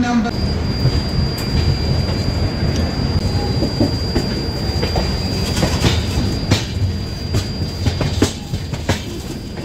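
Passenger train running on the rails: a steady low rumble with sharp clicks now and then, and a thin high-pitched whine held through most of it.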